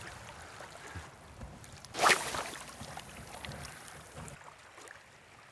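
Shallow seawater lapping and wind around a wading angler, with a brief loud rush of noise about two seconds in.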